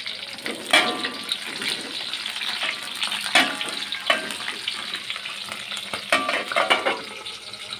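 Hot oil sizzling and spattering as red chilies, tomatoes, shallots and garlic fry in a pan, with several sharp pops through the steady hiss.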